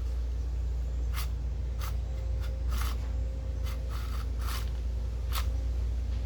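A run of short scrapes and clicks, about eight in all and irregularly spaced, from hand work on disc cutter parts during reassembly, over a steady low rumble.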